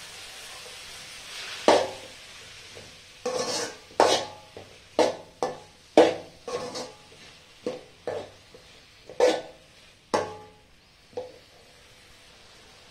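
A slotted steel ladle stirring sliced shallots and tomatoes in an aluminium kadai, knocking and scraping against the pan about fourteen times, each knock ringing briefly. A faint frying hiss underneath fades away early on.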